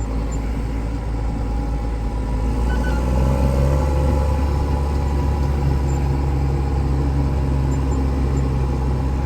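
Case IH Puma tractor engine heard from inside the cab: a steady low drone that grows a little louder about three seconds in, then holds.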